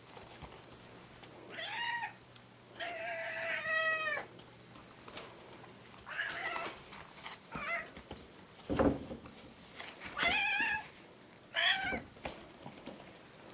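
Cat meowing several times in drawn-out calls, the longest about three seconds in. A single dull thump comes about nine seconds in.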